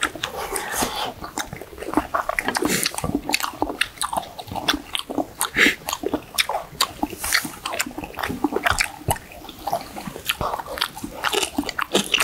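Two men eating squid and radish soup up close: chewing, mouth smacks and slurps, with chopsticks and spoons clicking against stainless steel bowls.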